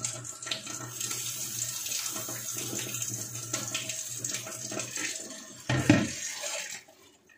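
Water running from a kitchen tap, a steady rush with a low hum under it, that shuts off abruptly about seven seconds in. Just before it stops there is a brief loud sound.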